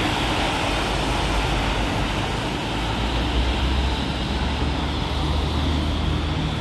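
Diesel coach bus driving off across a wet, puddled pavement. Its tyres make a steady hiss through the water over a low engine rumble.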